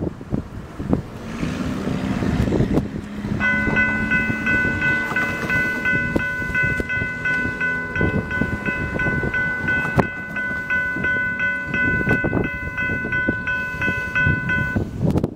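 Railroad crossing warning bell ringing in a fast, even, repeating ding as the crossing's gate arms come down. It starts about three seconds in and stops just before the end, once the gates are down. For the first half a low two-note horn sounds, typical of an approaching train's horn, with wind buffeting the microphone.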